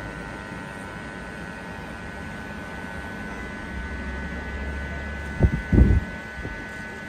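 Corded electric hair clippers running with a steady hum as they trim at the temple. About five and a half seconds in, two dull low thumps stand out as the loudest sounds.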